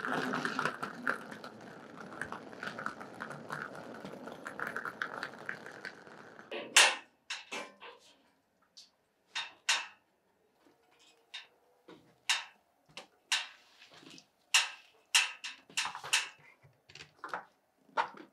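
A wheeled suitcase rumbling steadily over paving for about six seconds. Then a series of separate sharp clicks and clinks, keys and a door latch being worked as a door is unlocked and opened.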